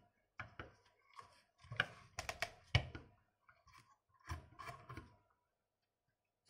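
Irregular plastic clicks and light knocks from the joints of an Acid Rain World Stronghold mech toy as its foot and arm are posed and it is set on a tabletop. They stop about a second before the end.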